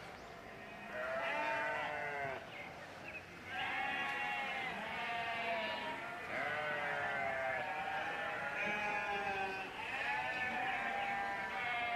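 A pen full of goats and sheep bleating, long wavering calls from several animals overlapping one after another.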